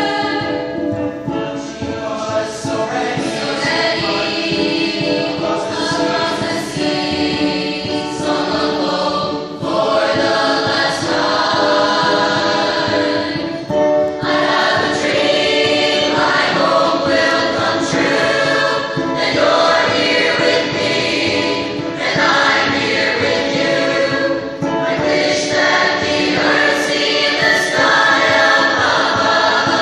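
Large mixed choir of boys and girls singing together in long held phrases, with short breaks between lines.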